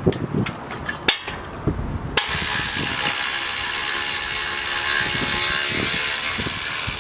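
A few clicks and knocks, then from about two seconds in a steady mechanical ratcheting noise that runs on, from tools or lifting gear being worked on the engine.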